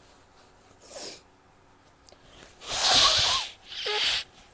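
A person sneezing: a loud sneeze about three seconds in, followed closely by a shorter second burst.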